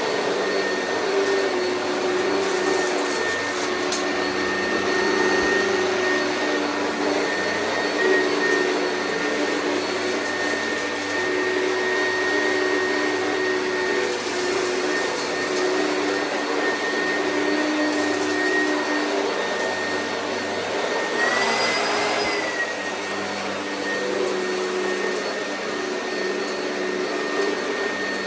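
Oreck vacuum cleaner running steadily with a high motor whine; about 21 seconds in the motor's pitch rises briefly and settles back.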